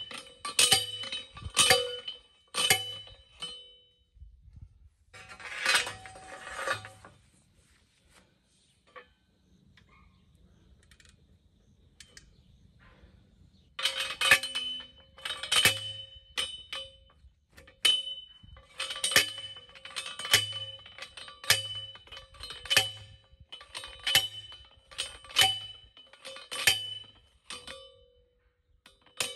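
Metal T-post being driven into the ground with a steel post driver: sharp, ringing metallic clangs about one a second. There are a few at the start, a short rustle, a quiet gap, then a long steady run of strikes from about halfway on.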